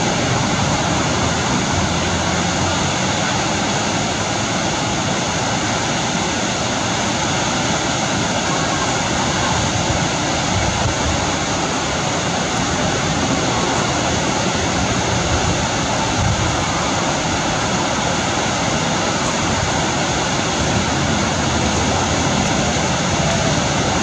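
Ithaca Falls waterfall: a loud, steady rush of falling water, an even noise with no breaks.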